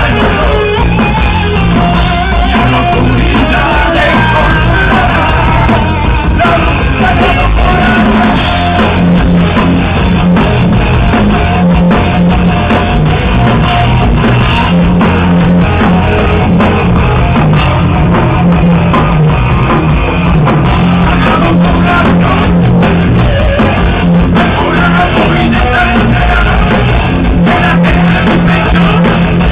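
Live rock band playing loud: electric guitars and a drum kit, with a singer's voice over them.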